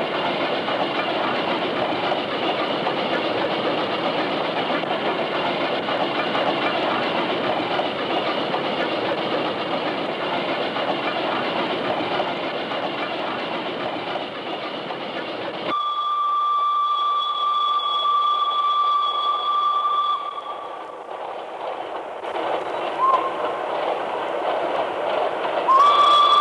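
Sharp Stewart B50-class steam locomotive running with its train, a steady running noise. About sixteen seconds in, the sound cuts to a long single-note steam whistle lasting four to five seconds, and the whistle sounds again near the end.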